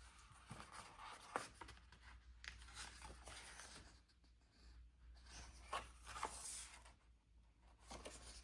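Faint paper rustling and a few light taps and clicks as sticker sheets and planner pages are handled.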